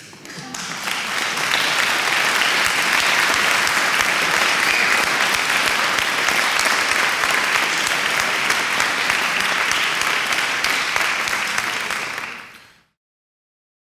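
Large crowd applauding, swelling up over the first second or so, holding steady, then fading out and stopping about a second before the end.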